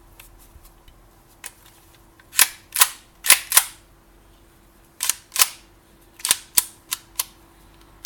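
About a dozen sharp, loud clicks in quick groups of two to four, from the hard parts of a small kitchen appliance and tools being handled during its teardown. A faint steady hum runs underneath.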